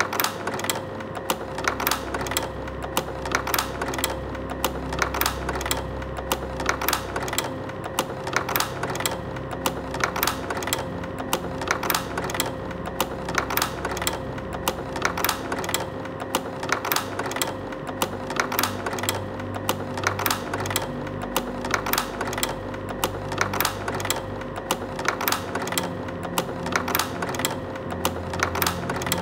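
Slide projector running: rapid mechanical clicking, several clicks a second with a stronger one about once a second, over a steady hum.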